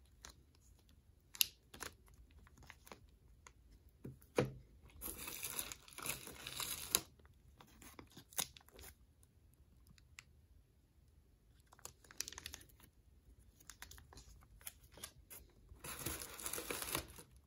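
Plastic packaging crinkling, rustling and tearing as hands open bags around graded coin slabs and a poly mailer. Scattered sharp clicks of handled hard plastic are heard. There are two longer stretches of rustling, one about five seconds in and one near the end.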